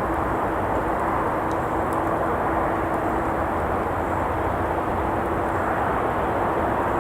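Steady rush of road traffic with a constant hum through it, and a few faint crackles from a wood campfire.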